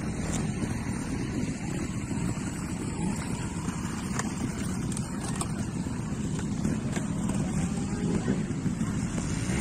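Trials motorcycle engine running as the rider works the bike through the section, a steady low rumble with wind buffeting the microphone.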